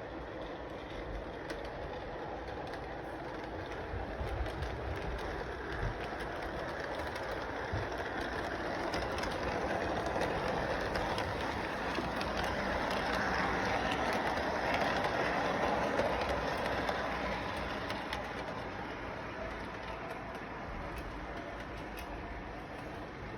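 A train rolling along its track with a clattering of wheels, growing louder to a peak about two-thirds of the way through and then fading as it passes.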